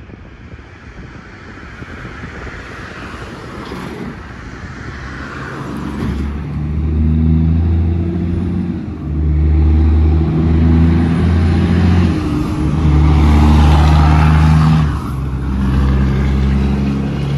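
Heavy diesel truck engine growing louder over the first few seconds, then running loud and close, its low note holding steady in stretches broken by short dips.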